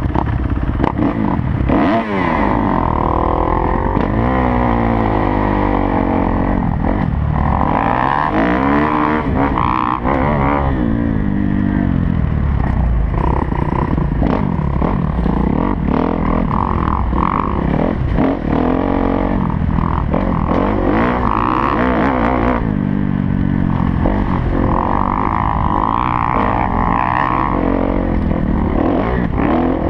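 Kawasaki KX250F's four-stroke single-cylinder engine being ridden hard, its pitch climbing and dropping back again and again through throttle and gear changes.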